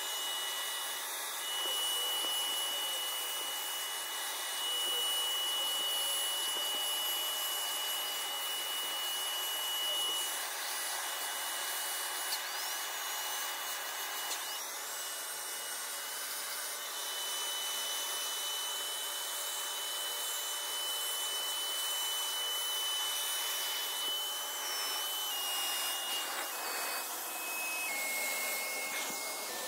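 Bissell wet upholstery cleaner running with its turbo brush on a fabric sofa: a steady motor whine over a rushing suction noise, its pitch dropping in a few steps near the end.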